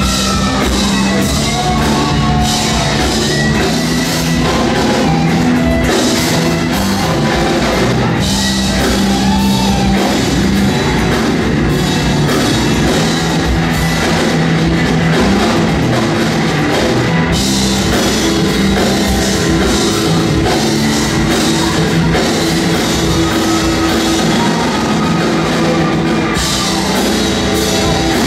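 Live rock band playing loud: guitars, bass guitar and drum kit with cymbals, steady without a break.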